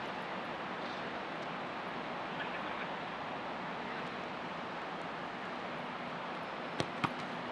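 Steady outdoor background noise with two sharp knocks about a quarter of a second apart near the end.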